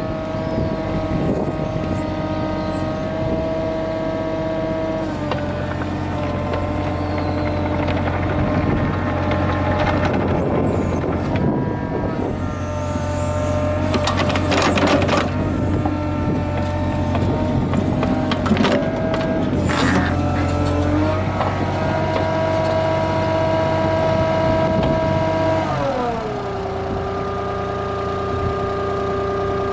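Mitsubishi MM20CR mini excavator's diesel engine running with its hydraulics working, a steady whine-like tone that shifts pitch a few times, with bursts of metallic clatter around the middle. Near the end the pitch drops and settles lower as the engine is throttled down.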